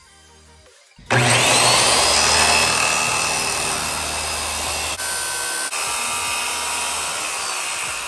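Circular saw starting suddenly about a second in and cutting through the galvanized steel wall of a 40-gallon stock tank: a loud, continuous grinding noise with a high whine that climbs as the blade spins up and then holds. It dips briefly twice about five seconds in.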